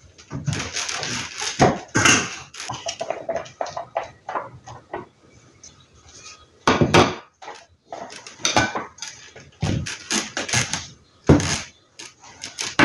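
Plates and tableware being handled and set down on a table: a run of irregular knocks, clinks and scrapes, with sharper knocks about seven and eleven seconds in.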